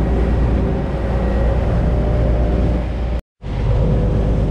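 Steady low drone of a large party fishing boat's engines running under way, with wind and water noise over it. It cuts out for a split second about three seconds in and picks up again the same.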